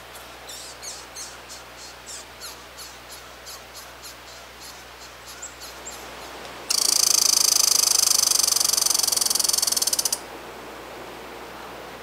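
American red squirrel calling: a run of short high chirps, about three a second, then a loud, very rapid rattle lasting about three and a half seconds that stops abruptly.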